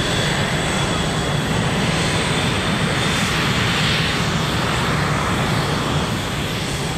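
RAAF F/A-18 Hornet jet fighters taxiing, their twin F404 turbofans running at low power. The engines make a loud, steady jet noise with a high turbine whine on top, which eases slightly near the end.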